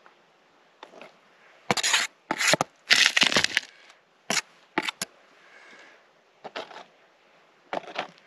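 Broken rock and gravel crunching and scraping as it is dug and moved over a metal-detector target, in a string of short, irregular bursts, the loudest about two to four seconds in.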